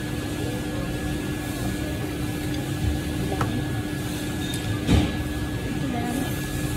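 Steady hum of a restaurant dining room with a low rumble underneath. A light click comes about three and a half seconds in, and a single dull thump a little before five seconds.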